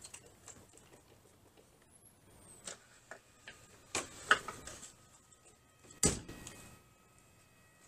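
Clicks and knocks as a motorhome's entry door is opened and stepped into, then the door shutting with a thump about six seconds in. A faint steady whine follows, the power awning's motor starting to extend it.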